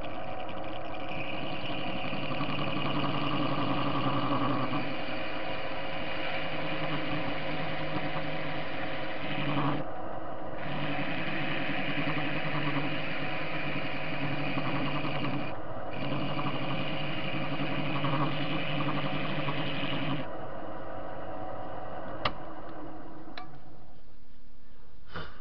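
TV-16 benchtop metal lathe running with the cutter boring the inside of a metal washer in light passes, a steady mechanical whine and scrape with short breaks about ten and fifteen seconds in. The chuck has play, which the owner says can be heard as knocks. The cutting stops about twenty seconds in, leaving a quieter machine hum and a few clicks.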